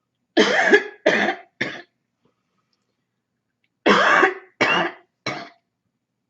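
A person with a cold coughing in two fits of harsh, barking coughs, three coughs to each fit, one fit near the start and another about four seconds in. In each fit the first cough is the longest and loudest and the next two are shorter and fainter.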